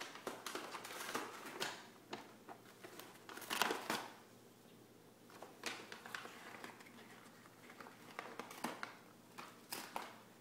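Paper bag crinkling and rustling in irregular bursts as a cat shifts about in it and clambers over its edge, loudest about three and a half seconds in.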